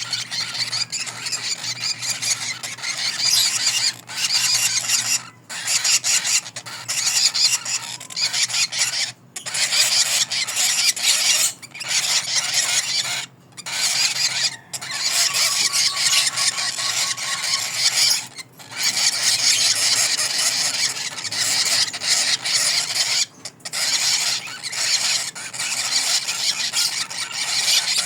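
Lovebirds chattering and screeching in long, dense, high-pitched runs, broken by brief pauses every few seconds.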